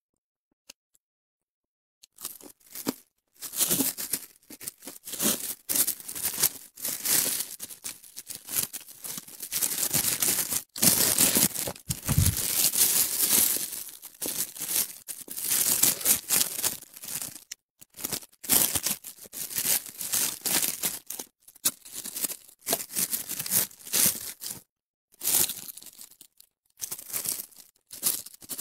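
Crispy deep-fried fish torn and picked apart by hand in plastic gloves: irregular crackling and tearing with glove crinkling, starting about two seconds in. Close-miked chewing of the crunchy fish runs in among it.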